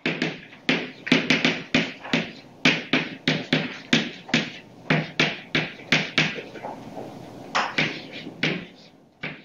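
Chalk writing on a blackboard: a quick run of short taps and scratches, two or three strokes a second, with a brief pause about seven seconds in.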